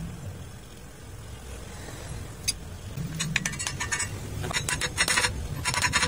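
Hammer tapping a steel spline sleeve into a backhoe sprocket hub as a push fit, the part oiled to slide in: one tap about halfway, then quick runs of sharp metallic taps.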